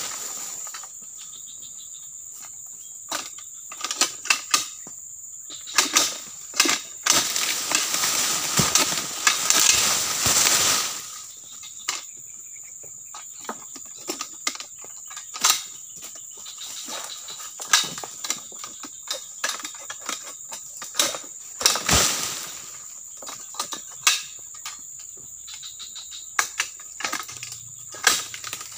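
Pole sickle chopping at oil palm fronds high in the tree: a scattered series of sharp chops and knocks, with a long rustling crash of leaves about seven seconds in, lasting some four seconds, as a cut frond comes down, and a shorter one near twenty-two seconds. A steady high insect drone runs throughout.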